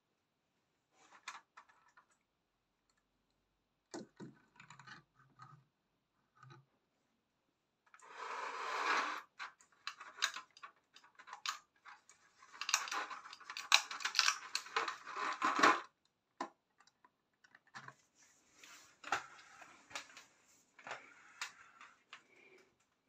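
Toy model buses being handled and set down on a hard tabletop: scattered clicks and light knocks, with a denser stretch of scraping and clattering in the middle.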